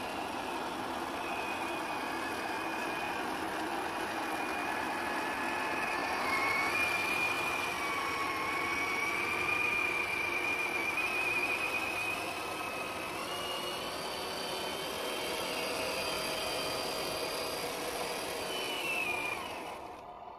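Electric motor and gear drive of a 1/10-scale HB-R1002 Bronco RC crawler whining under load as it churns through thick, sticky mud, the pitch wavering with the throttle. Near the end the whine falls in pitch and dies away.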